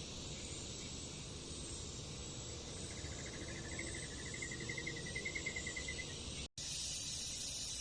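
Insects chirring steadily in a high, even hiss. From about three seconds in comes a rapid run of ticks, roughly eight a second, lasting some three seconds.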